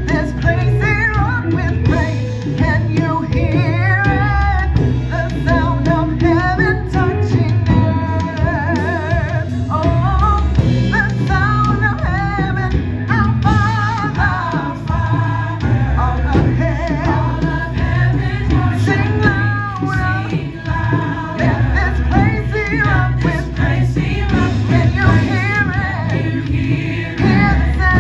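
Gospel worship music: voices singing a wavering melody with vibrato over instrumental backing with a heavy bass line, at a steady loud level.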